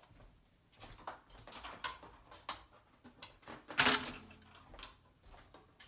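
Four-slice stainless steel toaster popping up, its spring-loaded carriage releasing with a sharp metallic clunk a little before four seconds in: the toasting cycle has finished. Lighter clicks and rustles come before it.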